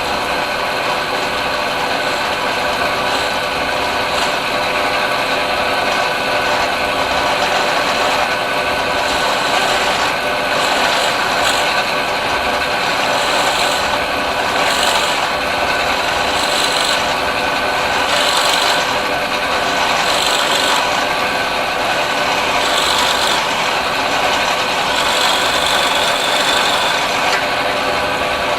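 A power drill running steadily while boring a hole about 2 inches deep into the end of a wooden shutter slat for a spring-loaded pin. The bit's cutting noise swells every second or two over the steady motor hum.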